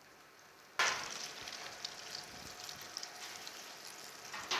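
Soaked spiced bread frying in butter in a pan: a sizzle with small crackles that starts suddenly about a second in. Near the end there is a sharp scrape as a palette knife goes under a slice to turn it.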